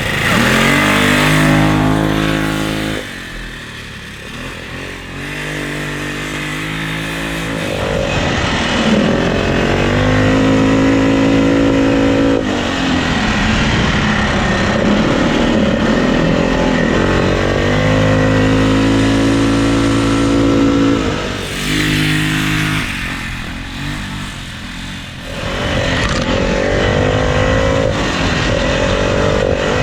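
Built single-cylinder Predator 420cc ATV engine under hard throttle around a dirt lap. Its pitch climbs with each acceleration and drops off as the rider backs off for corners, several times over, with a muffled exhaust note from the fitted Mustang muffler.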